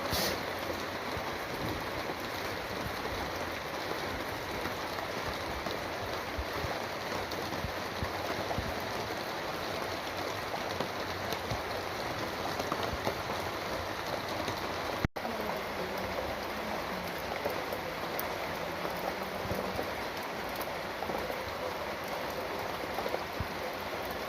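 Steady rain falling, a dense even hiss with no let-up apart from a momentary break about fifteen seconds in.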